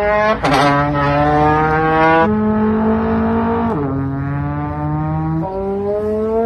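Trumpet blown in long notes that creep upward in pitch and drop back in steps, imitating a car engine revving up through its gears.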